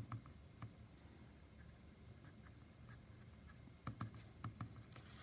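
Faint scratching of a paintbrush's bristles dabbing and rubbing paint onto a small canvas, with a few soft taps about four seconds in.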